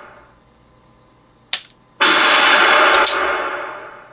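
A sharp dry-fire trigger click from a SIG P365 XL with a laser cartridge about one and a half seconds in, followed half a second later by a loud simulated gunshot from the laser training software, its echoing tail fading over about a second and a half.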